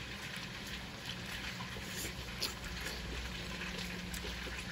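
Quiet background with a steady low hum and a few light clicks of chopsticks against a plate of noodles.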